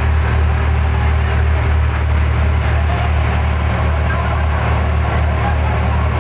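Fishing vessel's engine running, a steady loud low drone.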